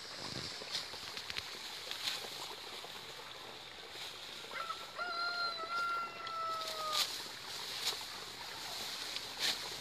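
Dry rice stalks rustling and snapping as they are cut by hand with a sickle, with a few short sharp cuts. About halfway through, a rooster crows once, one long call lasting a little over two seconds that falls slightly in pitch at the end.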